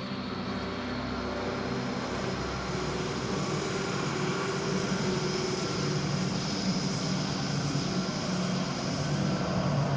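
Dark ambient electronic drone music: layered sustained tones with a low hum and a dense, engine-like texture, slowly growing louder.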